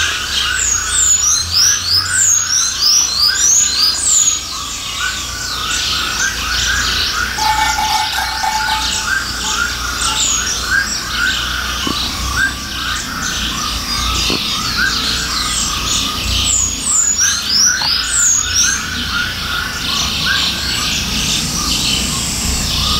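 Many birds chirping and calling together, with quick repeated chirps throughout and flurries of high, falling notes near the start and again about two-thirds of the way in, over a low rumble.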